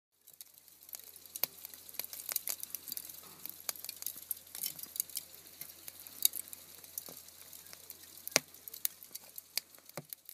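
Crackling sound effect: irregular sharp pops and snaps over a faint hiss, with a low steady hum underneath.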